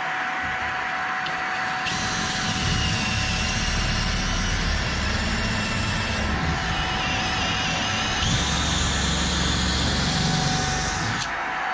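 Electric drill spinning a side-cutting bit through ceiling material: a high whine with a low rumble that starts about two seconds in, steps up in pitch around eight seconds, and stops shortly before the end. A steady background hum runs underneath throughout.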